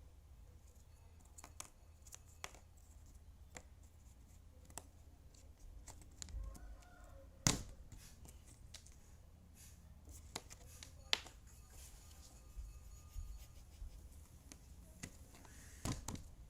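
Jigsaw puzzle pieces being handled and fitted together: scattered light clicks and taps, with a sharper knock about seven and a half seconds in and another about eleven seconds in.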